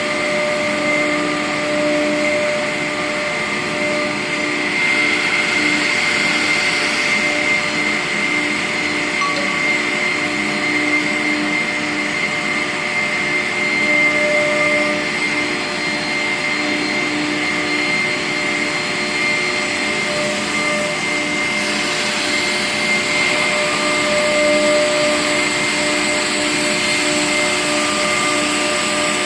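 Multi-head CNC router with four air-cooled spindles running at speed while routing grooves in an MDF panel: a steady high whine made of several held tones over a loud rushing noise.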